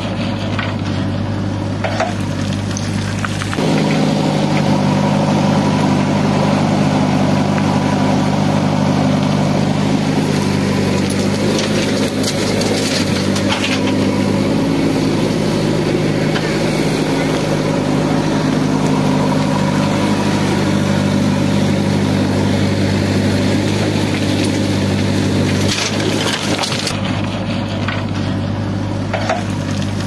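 Diesel engines of a JCB 3DX backhoe loader and a Mahindra tractor running steadily. From about four seconds in until about twenty-six seconds, a closer engine hum with several steady tones comes up louder, then drops back, with a few scattered knocks.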